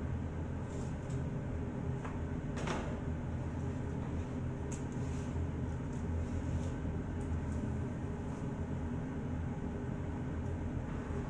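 Steady low mechanical hum, with a few light clicks and metal scrapes as a foil-covered baking tray is slid onto the rack of an open stainless-steel gas oven.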